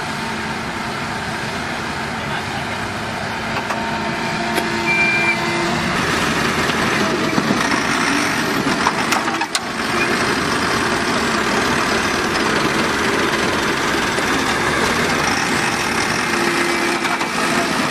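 Diesel engine of a JCB backhoe loader running steadily while the machine sits stuck deep in mud, with a brief drop in the noise about nine and a half seconds in.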